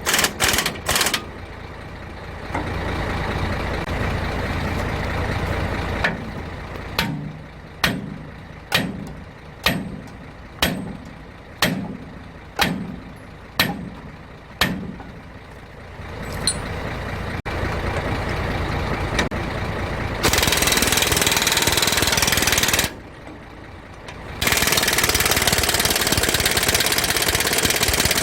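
Hammer blows on steel during truck leaf-spring and centre-bushing work: a couple of quick strikes at the start, then about nine evenly spaced strikes, roughly one a second, each ringing briefly. Near the end come two long spells of loud, steady rushing noise, the second about five seconds long.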